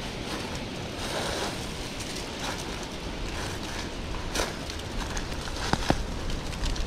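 Footsteps crunching through dry fallen leaves and twigs, with sharp snaps and crackles growing more frequent in the second half, over steady wind rumble on the microphone.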